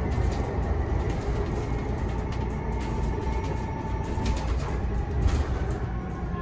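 Cabin of a BusTech ZDi battery-electric bus under way: steady low road and tyre rumble, a thin whine held near one pitch, and scattered light rattles and clicks from the body and fittings.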